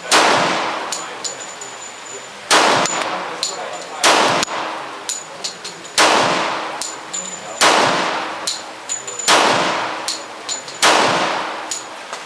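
Glock 21 .45 ACP pistol firing Federal Classic Hi-Shok hollow points at a slow, steady pace: about seven shots, roughly one every 1.5 to 2 seconds, each with a ringing tail. Between the shots come short metallic pings, ejected brass casings landing.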